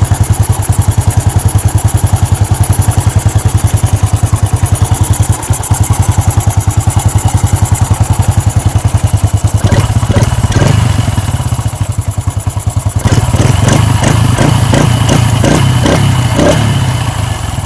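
Honda Wave 110i's single-cylinder four-stroke engine idling steadily on a freshly fitted 28 mm throttle body while its idle is being set. Past the halfway point it is revved in a series of short throttle blips.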